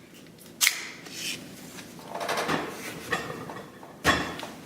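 Clicks, knocks and rubbing from a Phase One DF medium-format camera body and its digital back being handled: a sharp click early, fiddling, then a firmer knock near the end.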